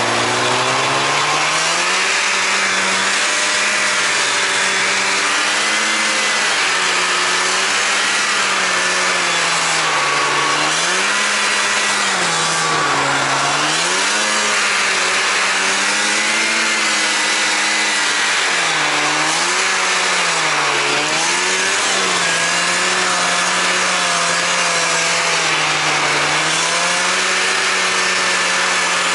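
Two-stroke snowmobile engine running hard under load while breaking a trail through deep snow, its revs dipping and climbing back several times.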